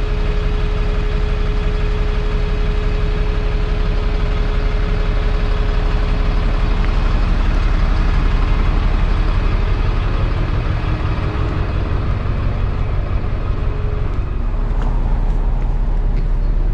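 Scania Fencer F1 single-deck bus engine idling steadily, a low rumble with an even hum on top that fades out a little past halfway.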